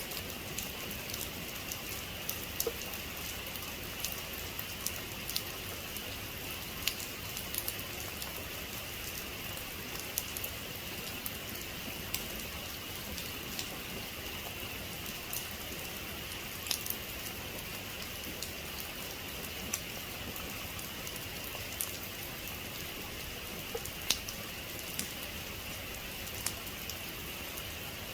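Heavy rain falling steadily, a constant hiss with individual drops ticking sharply on a surface here and there.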